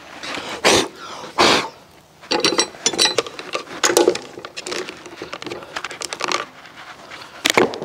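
Irregular knocks, clicks and light metallic clinks from handling a Vevor portable steel-cutting bandsaw on a workbench as its head is gripped and moved. Two brief rustling swishes come in the first couple of seconds.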